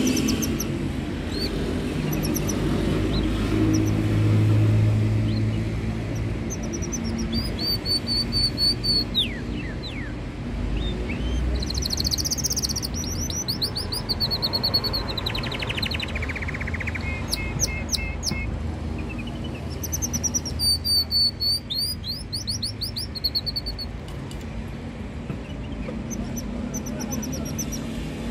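Canary singing in bouts of fast, high trills and rapid runs of repeated notes, with short pauses between phrases, over a low steady background rumble.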